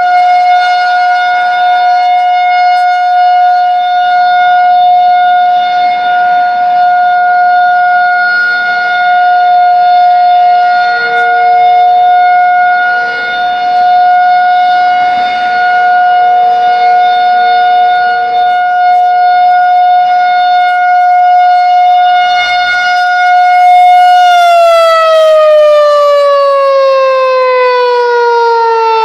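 Outdoor tornado warning siren sounding its monthly test: a loud, steady wail held for about twenty-four seconds, with a fainter, lower tone beneath it. Near the end the pitch starts sliding steadily down as the siren winds down.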